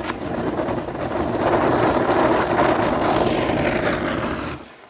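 Diwali chakri (spinning firework wheel) hissing and whirring as it spins and throws sparks. It grows louder after about a second and dies away sharply near the end.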